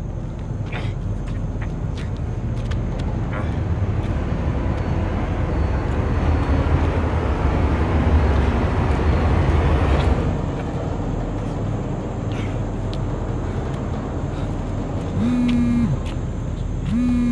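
A low rumbling noise swells to a peak about ten seconds in and then eases off. Near the end a mobile phone buzzes twice in short bursts as a call comes in.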